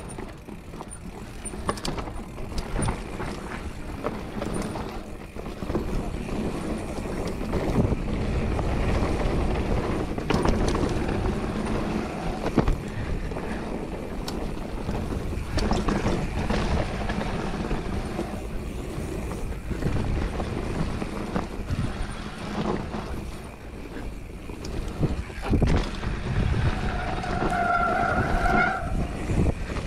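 Mountain bike descending a wet dirt trail, heard from a rider-mounted camera: wind rushing over the microphone, tyres rumbling over dirt and roots, and the bike rattling and knocking over bumps. A short squeal comes near the end.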